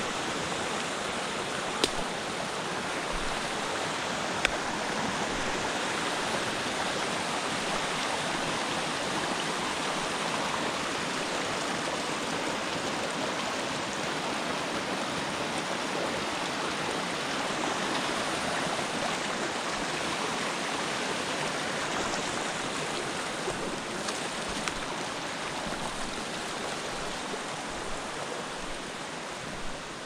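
Rain-swollen forest creek rushing steadily over small falls and cascades. A couple of brief sharp clicks sound in the first few seconds.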